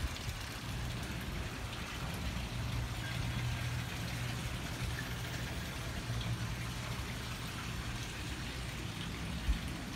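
Steady low hum of running machinery under a constant hiss, with one short thump near the end.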